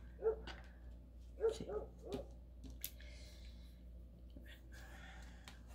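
A dog barking in the background: about four short, pitched yaps in the first two seconds or so. A faint rustle follows.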